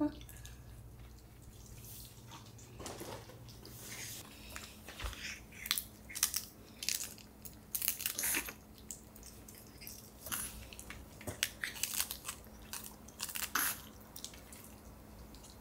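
A small Pomeranian biting and chewing a fresh endive leaf held out by hand: irregular, crisp crunches that come in clusters.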